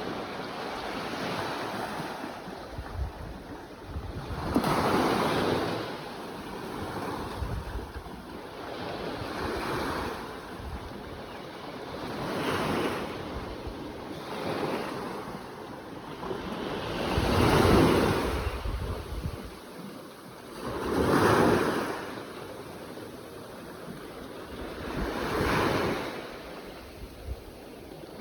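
Ocean waves breaking on the shore, the surf swelling and falling back every four to five seconds, the biggest breakers about two-thirds of the way through.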